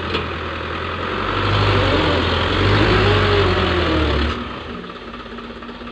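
Loaded dump truck's diesel engine revving hard as the truck strains to drive its rear wheels out of deep mud, its pitch rising and falling twice. About four seconds in, the revs drop back to a steady idle.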